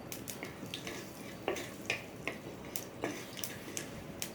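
Mustard seeds popping and spluttering in hot oil during tempering, with cumin and asafoetida just added: irregular sharp pops, about four a second.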